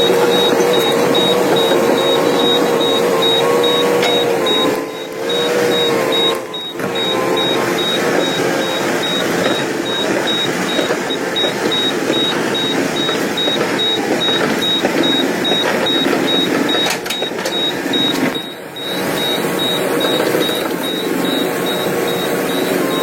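Diesel engine of heavy earth-moving machinery running steadily, with a wavering drone and brief dips in level three times.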